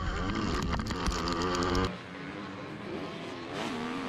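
Motocross bikes running on the track, their engines revving up and down with the throttle. About two seconds in the sound cuts suddenly to quieter, more distant bike engines.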